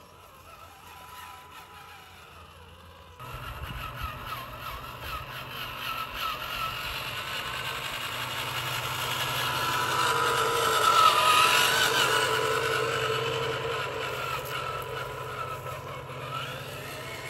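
Scale RC Land Rover Defender 110 model driving, its motor and drivetrain sound starting suddenly about three seconds in. It grows louder to a peak a little past the middle, with a wavering whine, then fades.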